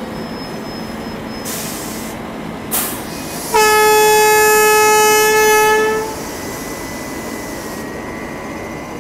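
Indian Railways WAP-7 electric locomotive moving off with its express, the train rumbling steadily past the platform; about three and a half seconds in, its horn sounds once, a single steady note lasting about two and a half seconds.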